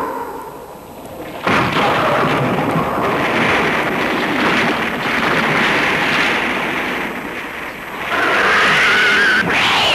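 Dubbed sound effect of a blast and rumbling rockfall. It starts suddenly about a second and a half in and rumbles on for several seconds, with a wavering high tone over it near the end.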